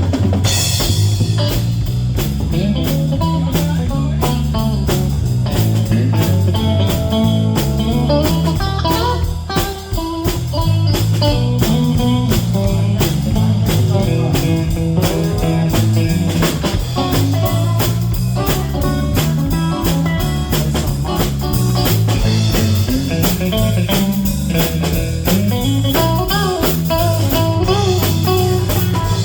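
Live band playing a blues-style number: guitar over bass and a drum kit keeping a steady beat, with a brief drop in level about a third of the way through.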